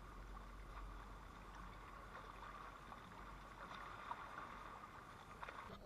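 Shallow stream running steadily over gravel, with a low wind rumble on the microphone and a few faint clicks.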